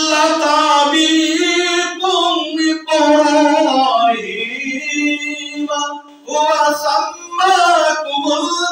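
A man's voice chanting in long, held melodic phrases, the melodic recitation style of a preacher during a sermon. The pitch dips and falls about four seconds in, and after a short break near six seconds the chant resumes.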